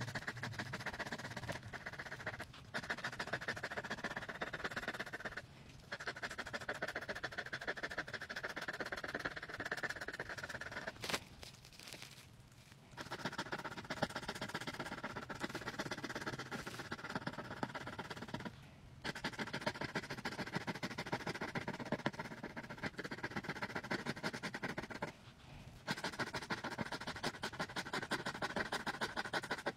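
A lottery scratch ticket being scratched off, the coating scraped away in quick back-and-forth strokes, in long runs broken by a few short pauses.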